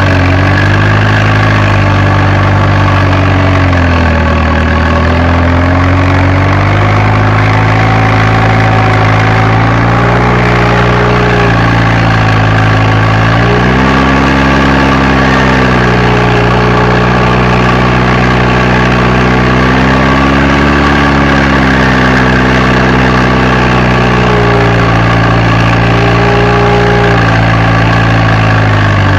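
Fiat Agri tractor's diesel engine running steadily, its pitch sagging and recovering several times as the engine speed changes.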